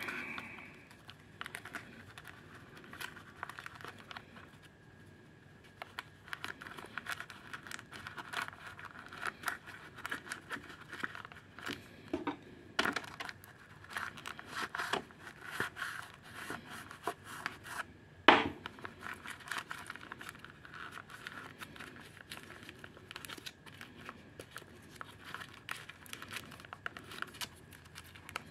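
Sponge ink-absorber pads being pushed and packed into a clear plastic waste-ink absorber housing from a Brother MFC-J4620DW printer. The sound is an irregular run of crinkling, scratching and rubbing, with two sharper knocks about halfway through and about two-thirds of the way through.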